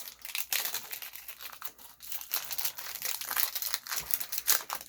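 A foil Pokémon card booster pack wrapper crinkling and crackling as it is handled and opened by hand.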